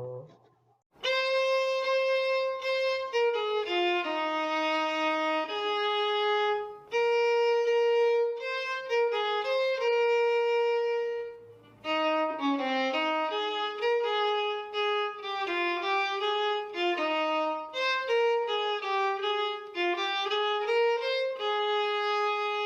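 A solo instrument plays the hymn melody alone, one note at a time in a slow, legato line. It comes in about a second in and breaks off briefly twice along the way.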